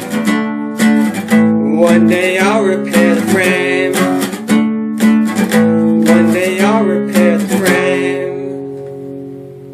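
Acoustic guitar strumming the closing chords of a song, then a final chord left to ring out and fade away over the last couple of seconds.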